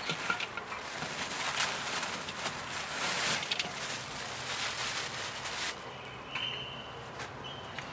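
Vegetable peels and greens rustling and crinkling with small clicks as they are handled and dropped into a clay pot for composting. The rustling stops about six seconds in, leaving a faint, brief high tone, heard twice.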